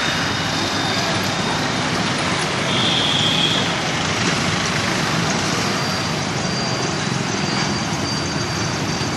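Steady mixed street traffic noise from motorcycles and three-wheeled auto-rickshaws running through a busy crossroad, with a brief high-pitched tone about three seconds in.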